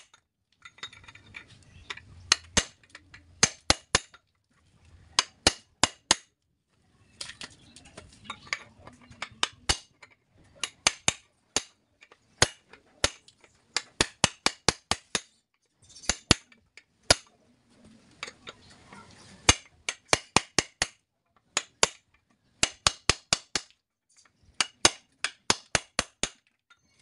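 Hammer blows on a steel punch working the rivets of a truck brake shoe while its lining is changed: quick runs of sharp metallic strikes, several a second, with short pauses between runs.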